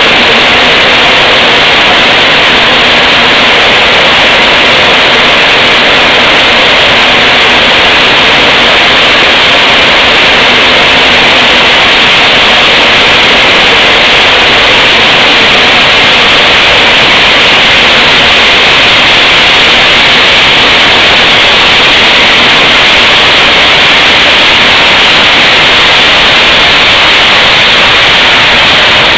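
Maize flour mill machinery running: a loud, steady, even roar that does not let up.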